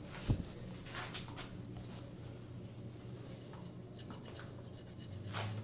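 Light rubbing and scattered faint clicks of hands handling a bicycle, with one sharp knock a fraction of a second in, over a steady low hum.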